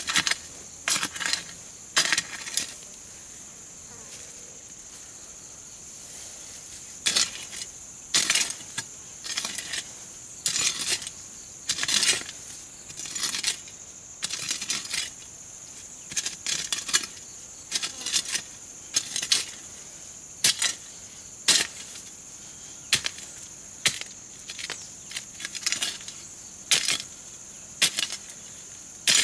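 Steel hoe blade chopping and scraping into soil in irregular strokes, roughly one a second, with a lull of about four seconds a few seconds in. A steady high insect buzz runs underneath.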